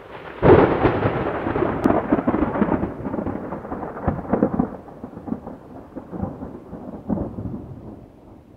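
Thunder sound effect: a loud clap about half a second in, then crackling rumbles that roll on and slowly fade away.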